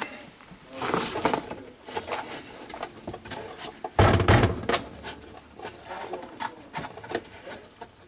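Plastic pump cover and filter assembly in the bottom of a dishwasher tub being gripped and shifted by hand: scattered clicks, scrapes and rattles of plastic, with a louder knock about four seconds in.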